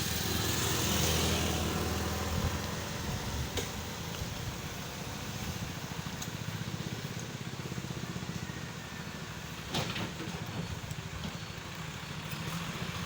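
An engine running steadily, louder for the first couple of seconds, with a brief knock or two.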